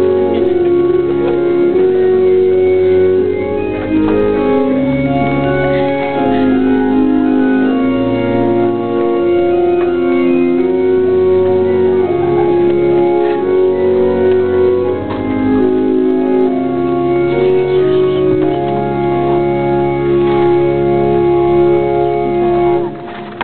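Organ music in a church: full sustained chords over long held bass notes that change every second or two, dropping away at the very end.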